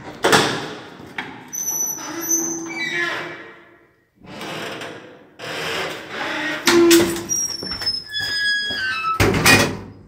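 Doors of an old 1969 apartment-block passenger lift being worked: clanks and knocks, squeaks that slide down in pitch twice, and a loud bang near the end.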